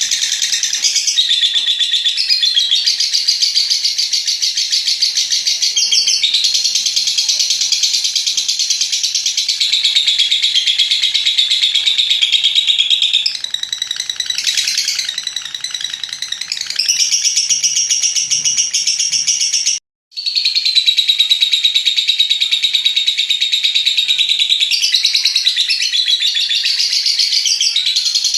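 Lovebird's long ngekek song: a continuous, rapid, high-pitched chattering trill that runs on almost without pause, broken only by a split-second gap about twenty seconds in.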